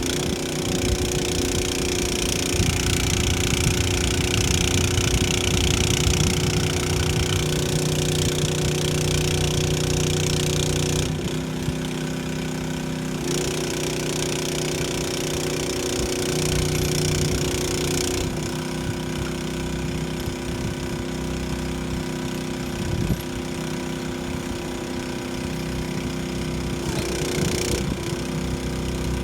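An engine running steadily at an even speed, with a loud hiss that cuts in and out several times.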